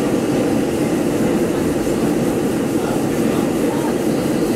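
New York City Subway 7 train car running through the tunnel, heard from inside the car: a steady, loud rumble of wheels on rail, with most of the weight in the low-middle range.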